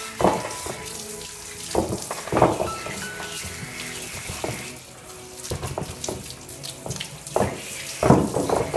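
Water running and splashing in uneven surges, as washing machine parts are rinsed, with background music.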